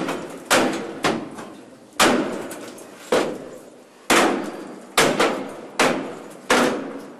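Hammer blows on a tool set into the lock of a wooden door, as the door is being forced open. About eight sharp strikes, unevenly spaced under a second apart, each ringing briefly.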